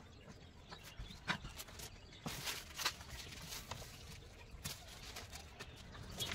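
Paper and carbon-paper sheets rustling and being slid about on a wooden board, with scattered light taps and knocks, busier from about two seconds in.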